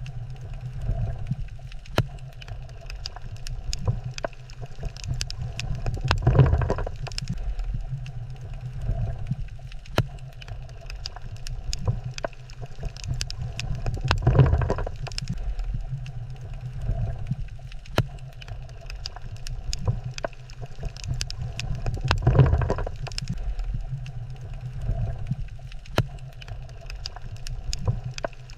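Underwater coral reef ambience: a steady low rumble scattered with sharp crackles and clicks, with a broad swell of water noise about every eight seconds.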